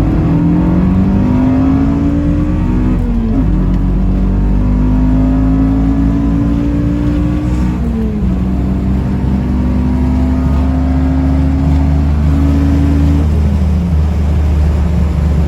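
Honda K24 inline-four engine swapped into a Toyota MR2, accelerating through the gears. The engine note climbs steadily in each gear and drops at three upshifts, about 3, 8 and 13 seconds in.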